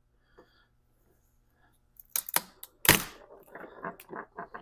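Lever-action nutcracker cracking an English walnut: a few sharp clicks as the jaws take up pressure, one loud crack of the shell about three seconds in, then small crackles as the shell breaks apart.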